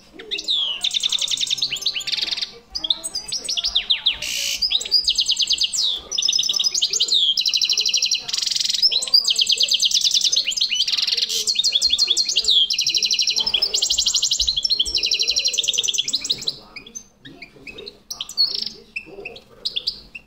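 Male European goldfinch singing a long, fast twittering song of rapid repeated trills and quick sweeping notes, excited courtship song directed at a female canary. The song stops about three-quarters of the way through, leaving a few scattered chirps.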